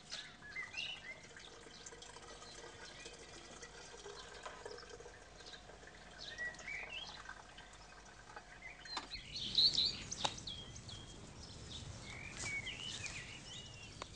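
Small birds chirping now and then, with a louder cluster of chirps about nine and a half seconds in.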